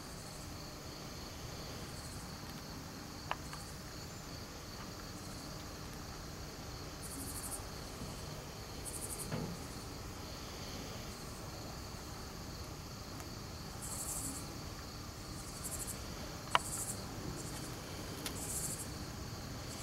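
Crickets chirping steadily, with repeated bursts of higher-pitched insect trilling. Over them, a collie tears and chews at sweet corn husks, and two sharp clicks stand out, the second, late on, the loudest.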